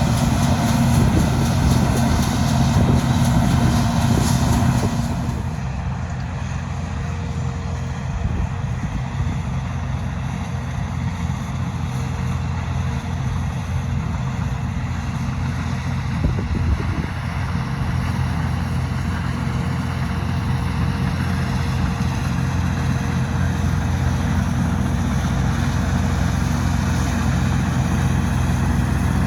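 Large farm machine's engine running steadily under a rushing mechanical noise. About five seconds in, the sound drops a little and the higher hiss fades.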